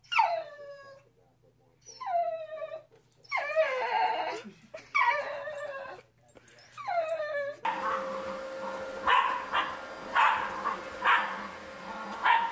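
Corgi giving about five drawn-out whining cries, each falling in pitch, so plaintive that they sound like it is in pain. Then, after an abrupt change, a dog gives about four short barks roughly a second apart over a faint steady hum.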